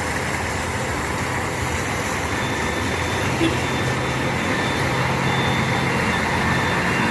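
Steady engine and road noise of a heavy road vehicle, its low hum growing a little stronger about three seconds in; it starts and stops abruptly.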